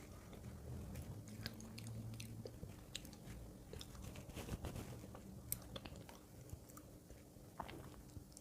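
A person chewing a mouthful of mooncake, faintly, with scattered soft mouth clicks and smacks.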